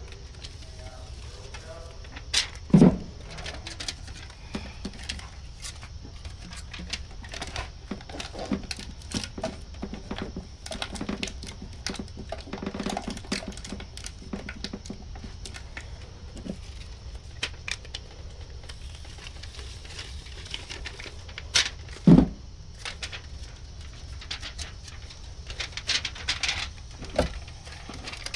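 Hands working on a metal dryer vent duct among attic insulation: scattered clicks, rustles and light knocks, with two loud thumps, one about three seconds in and one about 22 seconds in.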